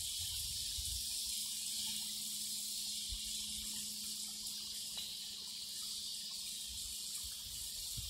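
Small stone garden waterfall splashing into its pond, a steady high hiss, with some wind rumble on the microphone in the first second or two.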